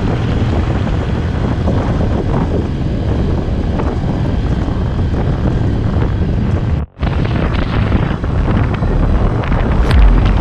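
ATV riding noise: the quad bike's engine running under heavy wind buffeting on the microphone, steady throughout. The sound cuts out for a split second about two-thirds of the way through.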